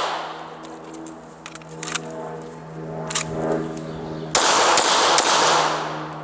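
Three quick shots from a 9mm Glock 26 compact pistol, fired about four and a half seconds in, after a couple of fainter sharp cracks. A steady low hum runs underneath.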